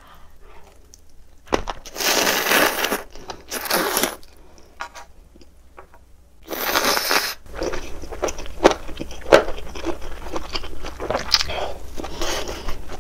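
Close-miked eating of ramen: three loud bursts of slurping noodles, then from about halfway on a quick run of wet chewing clicks.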